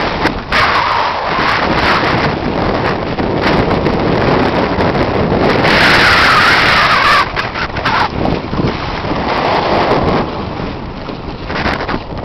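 Strong wind buffeting the microphone at sea, a loud rushing that gets harsher for about a second and a half a little past the middle, with waves and water around the kayak.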